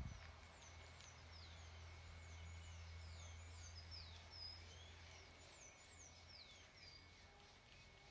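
A songbird singing a run of short, quick, downward-sliding whistled notes for about seven seconds, faint, over a steady low hum.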